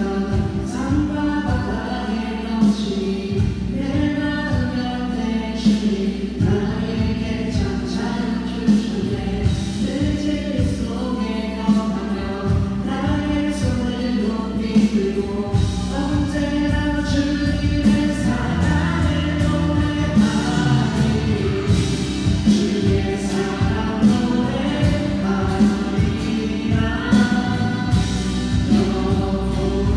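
A group of voices singing a Korean worship song together with instrumental accompaniment, steady and continuous.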